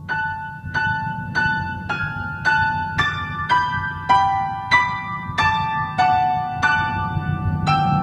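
Grand piano played with one hand on the keys and the other reaching in on the strings: a slow, even run of single notes, about one every 0.6 seconds. Each note rings with bright overtones, and the pitch climbs a little, then falls back near the end.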